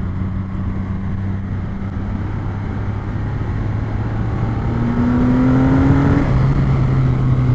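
Triumph Rocket 3R's 2,458 cc three-cylinder engine pulling steadily at road speed, with wind rush over the microphone. About two-thirds through the engine note rises a little and gets louder as the throttle opens.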